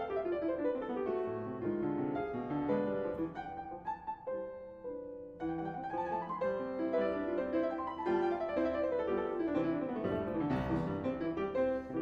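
Background music: solo piano playing quick runs of notes up and down in a classical style.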